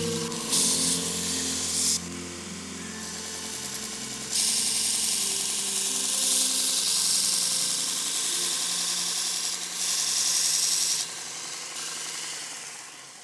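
Variable-speed 2-inch belt grinder running, with a steel blade edge pressed against the abrasive belt in three grinding passes that give a loud hiss over the motor's steady hum. The motor winds down near the end.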